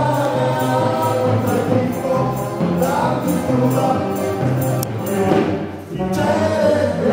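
Folk dance band playing a lively tune on accordion, saxophone, banjo, drum and bass guitar.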